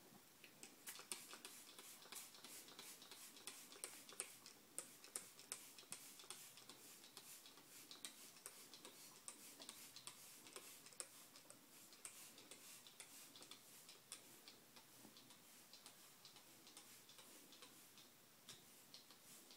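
Faint, irregular small clicks and ticks in near silence, coming in uneven runs and thinning out toward the end.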